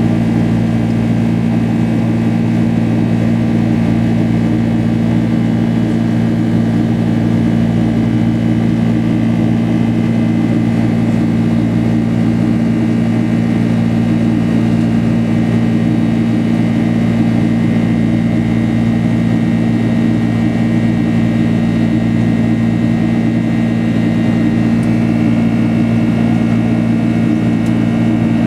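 Steady cabin drone of a Boeing 767 in flight: the low hum of its twin jet engines and rushing airflow, with a faint high steady whine over it.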